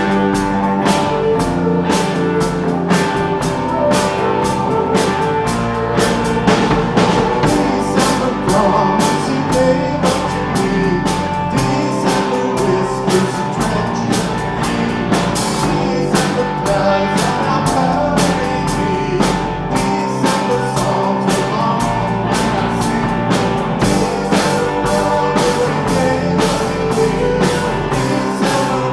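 Rock band music: a drum kit keeping a steady beat of about three hits a second under guitar, with a sustained note held throughout.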